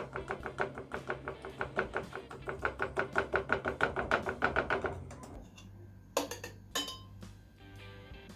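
Knife blade sawing quickly back and forth along the edge of a metal baking tray, about six scraping strokes a second, to loosen the set milk pudding from the sides. The scraping stops after about five seconds, followed by two sharp clinks of the knife against the tray.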